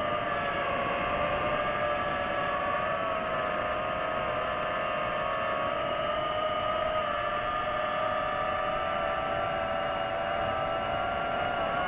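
DJI FPV drone's motors and propellers whining steadily over a rushing hiss, the pitch drifting slightly up and down as the throttle changes.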